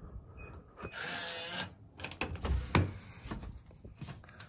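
Electronic keypad deadbolt unlocking: a short beep from a key press, the motorized bolt whirring back for about half a second, then sharp clicks and knocks of the handle and latch as the door is pushed open.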